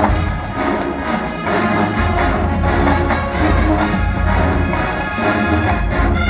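Marching band brass and percussion playing a Motown-style number loudly, with a strong bass line and a steady beat.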